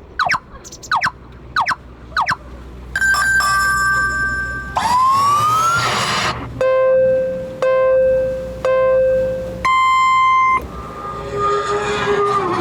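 A run of comic whistle and horn-like toots: five quick falling whistles, then a held two-tone note and a rising slide, then three even held low notes and one higher one.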